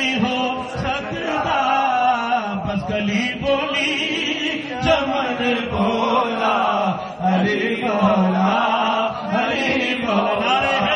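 A man's voice singing a devotional naat into a handheld microphone, in drawn-out, ornamented melodic phrases with long held notes.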